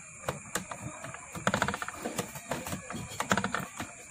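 Manual transformer coil winder turning, clicking and rattling in quick irregular clusters as enamelled copper wire is wound onto the bobbin, over a faint steady high whine.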